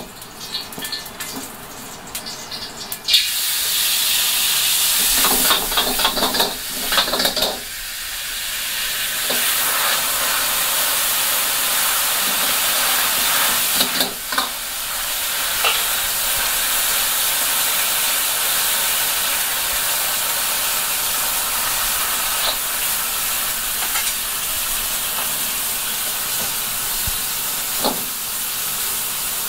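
Stock ladled into a very hot wok hits with a sudden loud hiss about three seconds in, then boils hard with a steady hissing sizzle. A metal ladle knocks against the wok a few times.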